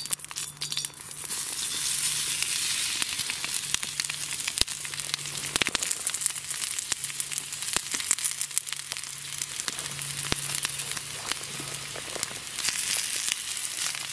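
Potato peels sizzling and crackling in a hot iron pan over a wood-burning stove; the sizzle builds about a second in as the peels are tipped in. The peels are frying to season the new pan, burning a first patina onto its cooking surface.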